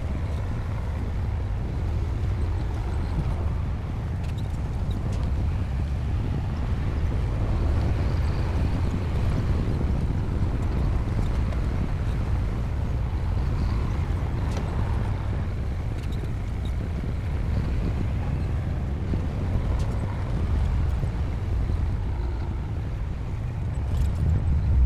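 Bulldozer diesel engine running steadily under load, a low-pitched sound with a mechanical haze above it, briefly louder just before the end.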